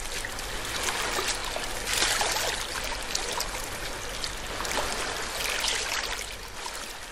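Water lapping and splashing, a steady wash full of small crackles that swells twice, about two seconds in and again after five seconds.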